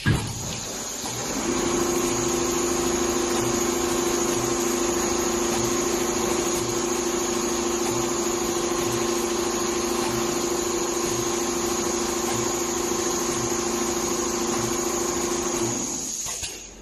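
Four-head CNC leather quilting sewing machine running: a steady motor hum with a high whine and a faint slow pulse, starting about a second and a half in and stopping shortly before the end.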